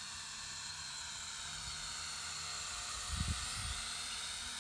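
Small beginner drone's propellers whirring in flight: a steady high whine made of several tones. A couple of short low bumps come about three seconds in.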